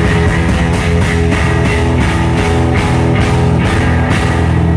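Live rock band playing loud: electric guitar, bass guitar and a drum kit with steady cymbal hits. The drums stop near the end, leaving the guitar and bass ringing on.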